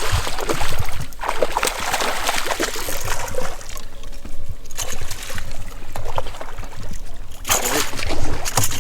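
Water splashing and sloshing at the surface, loudest over the first three seconds and again in a short spell near the end.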